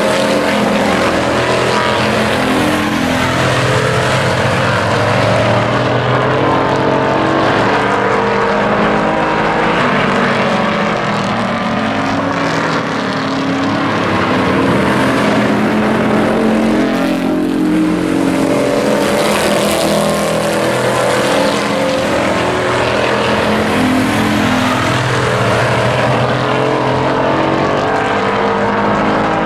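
Several pickup race trucks' engines running at race speed around an oval, several engine notes at once rising and falling as the trucks lap and pass.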